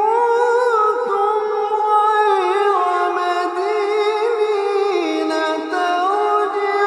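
Solo voice chanting Quran recitation in melodic tajweed style, drawing out long held notes that glide and turn in pitch without a break.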